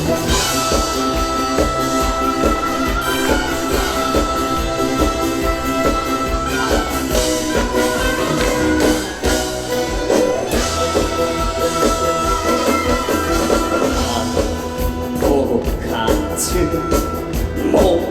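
Instrumental interlude of a trot song: backing music with a steady drum beat under a held melody line.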